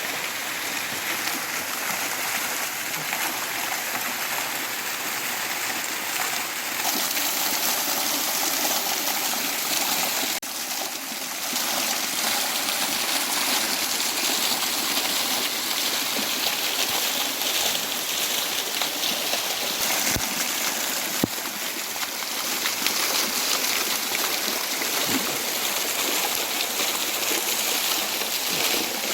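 Small mountain waterfall pouring into a stream: a steady, even rush of falling and splashing water.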